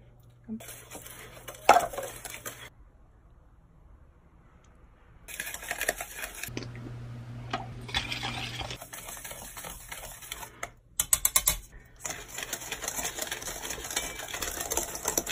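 Dry bath-bomb powder being mixed in a stainless steel bowl: rapid scraping and clicking against the metal, in several spells with short pauses between them.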